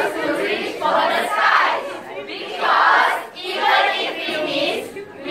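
A choral speaking group reciting in unison, many voices together. It comes in several loud phrases with short pauses between them.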